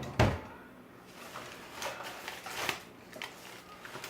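Close handling noises of slime being worked over a phone: a sharp knock just after the start, then a few soft crackly rustles.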